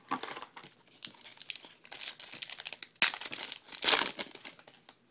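Foil trading-card pack wrapper crinkling and being torn open, a run of crackles that is loudest near the end before it stops.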